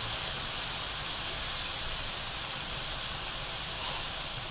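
Beef and tofu cubes sizzling in oil in a wok, a steady hiss with brief louder crackles about a second and a half in and again near the end.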